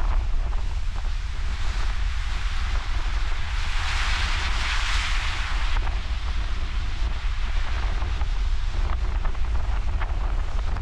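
Ocean surf at a king tide, with wind buffeting the microphone in a steady low rumble. A wave's hiss swells about two seconds in and drops away abruptly a little before the middle.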